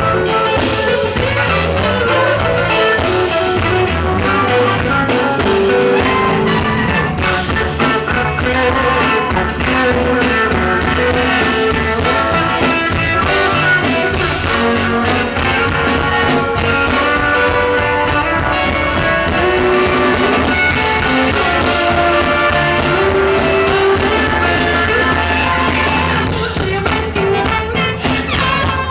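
A live funk band playing, with a horn section of baritone sax, tenor sax and trumpet over drums, bass, guitar and keyboards, and singing. Steady and loud throughout.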